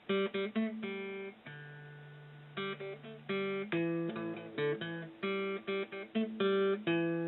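Acoustic guitar music: a run of quick plucked notes and short strums, with a few notes left to ring.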